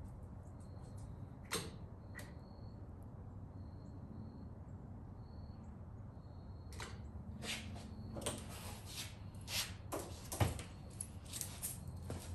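Scattered sharp clicks and knocks of parts being handled while a motorcycle's rear trunk is being taken off: two single clicks early, then a busier run of clicks and knocks in the second half.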